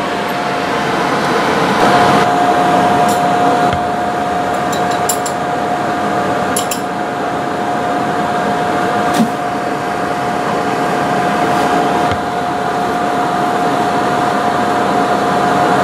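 Steady fan blower of a clean-air workstation (laminar flow hood), an even whooshing noise with a constant mid-pitched whine. A few faint clicks of small instruments being handled come through it.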